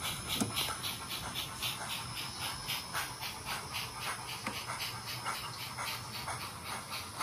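Nn3-scale model steam locomotive's sound decoder playing a steady exhaust chuff, about four to five hissing chuffs a second, through its tiny speaker, with an occasional light click.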